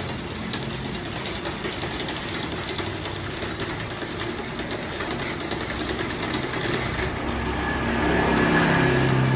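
A small motor running steadily with a mechanical hum, getting louder about eight seconds in.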